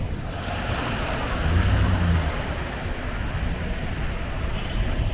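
Busy city street in a snowstorm: a steady rush of traffic and wind noise, with a low rumble that swells about a second and a half in.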